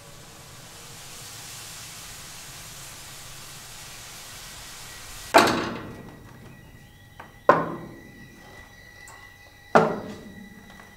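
Trailer sound design: a hissing swell rises for about five seconds, then cuts into three heavy impact hits about two seconds apart, each ringing out, with a faint steady high tone beneath.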